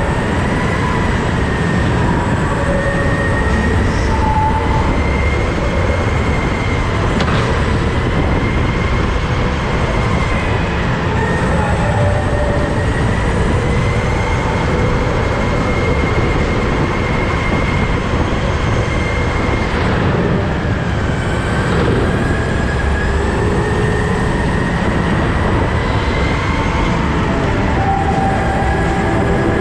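Go-kart driving at speed: a loud steady drive noise with a whining tone that slowly rises and falls every several seconds as the speed changes.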